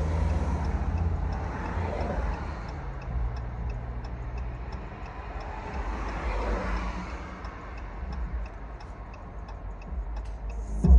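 Hazard-light flasher ticking steadily, a few ticks a second, inside the car over the low rumble of the Hellcat's supercharged V8 idling. Two passing cars swell and fade, about two seconds in and again past the middle.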